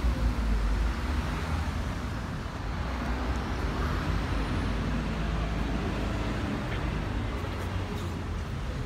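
City bus running as it drives slowly across a station forecourt, a steady engine and road rumble that is heaviest in the first second.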